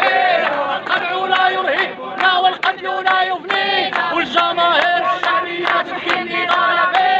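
A crowd of protesters chanting slogans in unison in Arabic, men's and women's voices together, in a rhythmic call with hand-claps.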